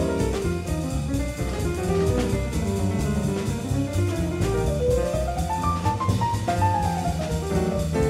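Live small-group bebop jazz: acoustic piano playing quick running lines, comping over walking double bass and a drum kit keeping time on cymbals.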